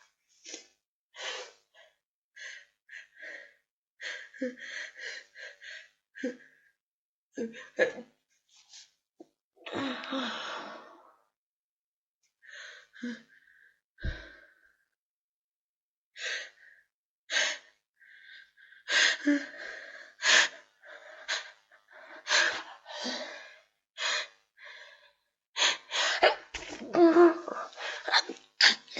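A person with a head cold sneezing wet sneezes again and again, with gasping breaths as each sneeze builds up. The bursts are short, with pauses between them, and come thicker and louder in the second half.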